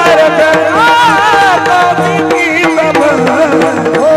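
A man singing a melismatic devotional kirtan tune, his voice gliding through ornamented turns over a steady held drone, with hand-drum accompaniment.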